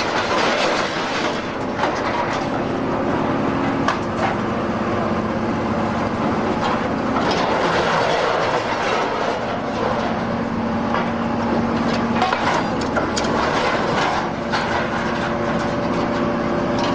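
Hydraulic scrap iron baler running: a steady hum under continuous clanking and rattling of scrap metal, with scattered sharp knocks.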